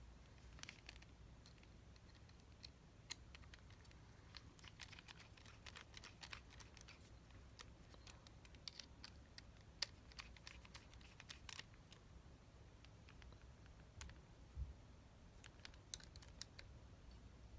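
Faint, irregular light clicks and taps of small parts and tools being handled during the rebuild of a Shimano Di2 STI lever, with near silence between them and a soft low thump near the end.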